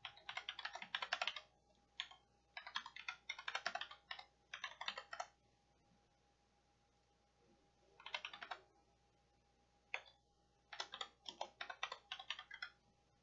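Typing on a computer keyboard: several quick runs of keystrokes separated by pauses of up to about two seconds, with a couple of single key presses in between.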